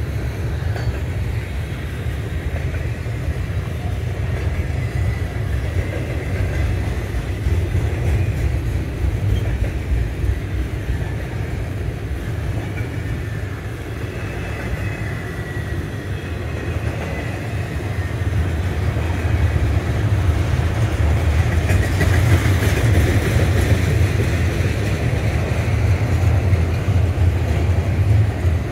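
Double-stack intermodal container well cars rolling past, a steady low rumble of steel wheels on rail that gets louder in the last third.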